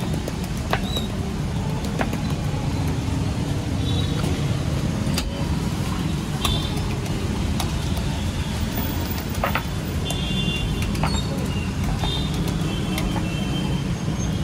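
Steady low rumble of road traffic, with faint background voices and a few sharp clicks scattered through.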